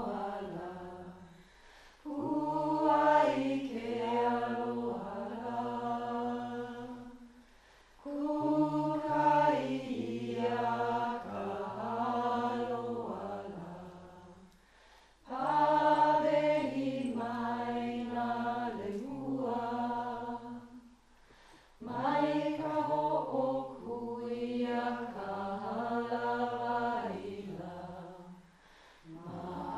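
Chanting: a voice sings a long chanted phrase of about five to six seconds, repeated four times with a short pause before each, and a fifth beginning at the very end.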